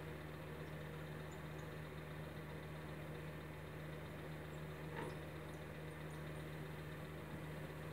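Steady low hum, with a faint tap about five seconds in.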